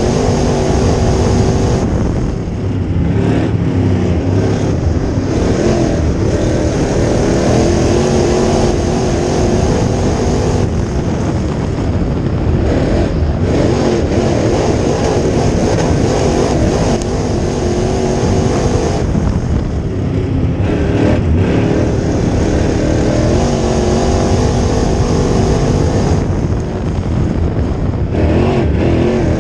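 Crate late model dirt race car's V8 engine running at racing speed, heard from inside the cockpit. The note eases every eight seconds or so, four times, as the driver lifts for the turns, then builds again on the straights.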